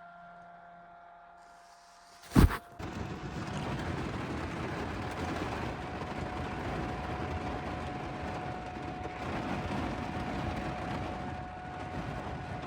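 A single sharp, very loud crack of close thunder a little over two seconds in, followed by a steady roar of heavy rain pouring down during a severe thunderstorm.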